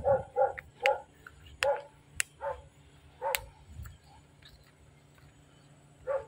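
A dog barking in short, repeated barks, spaced out more and more over the first few seconds, then stopping, with one more bark near the end. A few sharp clicks fall among the barks.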